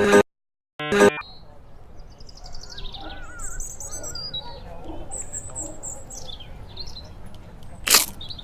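Music cuts off, then after a short gap wild birds sing outdoors: repeated high, falling trills and short chirps over a low background rumble. A single sharp knock sounds near the end.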